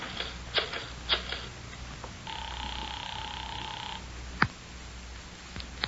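Radio-drama sound effects: a few footsteps, then a steady telephone tone lasting under two seconds, then a single sharp click of the handset.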